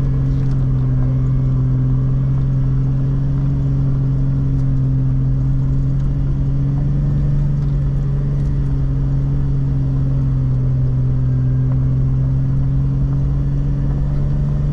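Jeep LJ's engine running steadily under load with a constant low drone while it climbs a steep trail towing a trailer.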